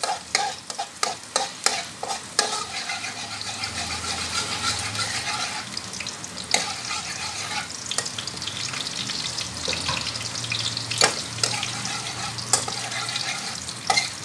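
Minced garlic sizzling in hot oil in a steel wok, being fried until golden. A metal spatula scrapes and taps against the wok in quick strokes for the first couple of seconds, then the sizzle goes on steadily with occasional clicks of the spatula.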